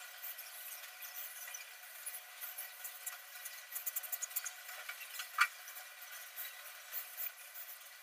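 Soft scratching and clicking of pet cockatiels moving about in a wire cage, one picking at a plastic food dish, with a run of quick ticks around four seconds in and a sharper click about a second later.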